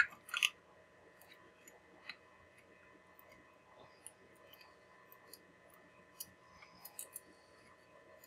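Faint handling clicks and taps as fingers work a coil wire into a spring terminal on a plastic crystal radio kit case. Two sharper clicks come right at the start, then scattered small ticks.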